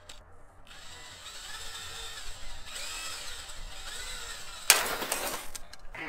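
Cordless drill running at low speed, winding the rubber-band motor of a homemade rubber-band helicopter, a faint motor whine that wavers in pitch. Near the end a sudden loud burst as the overwound rubber band lets go.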